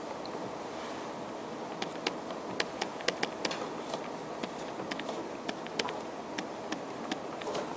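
Stylus tip tapping and clicking on a tablet as a formula is handwritten: sharp, irregular ticks several times a second, starting about two seconds in, over a steady room hum.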